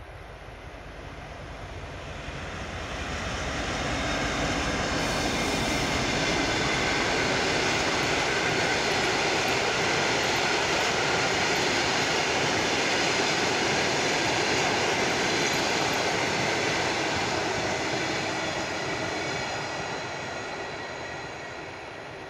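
TEP70BS diesel locomotive and its train of passenger coaches passing by. The sound builds over the first few seconds as the locomotive draws level, holds as a steady rumble of wheels on rails while the coaches go by, then fades as the train moves away.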